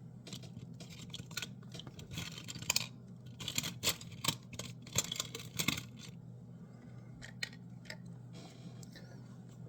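Small clicks, scrapes and rustles of objects being handled and moved about on a workbench, busiest in the middle, over a steady low hum.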